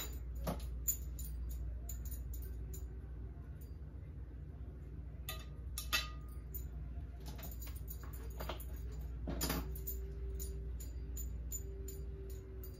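Metal utensil clinking against a glass punch bowl a few times as cake is crumbled into it, over a low steady hum.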